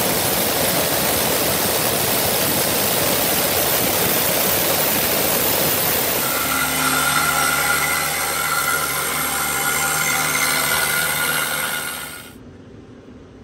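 Pneumatic needle scaler hammering against a rusty steel armoured hull, stripping rust and old paint: a loud, steady, rattling air-tool noise that stops about twelve seconds in.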